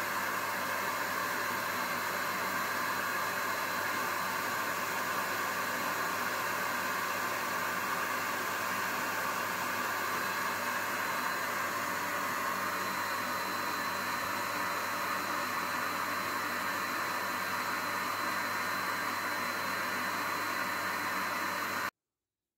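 Steady hiss of compressed air blowing into a small oscillating engine model, over the air compressor that powers it, which is really loud. The sound cuts off abruptly near the end.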